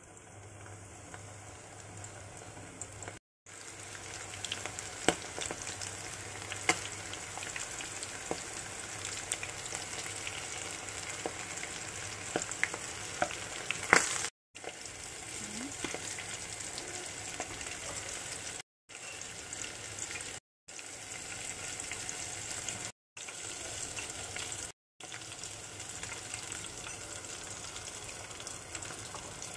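Breaded squid rings deep-frying in hot cooking oil: a steady sizzle full of small crackles, with a few sharper pops in the first half. It is broken several times by brief gaps of silence.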